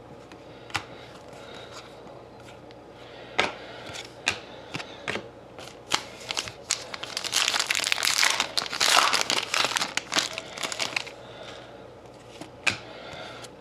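Hands handling trading cards: scattered light taps and clicks as cards are moved and set down, with a longer stretch of plastic crinkling in the middle.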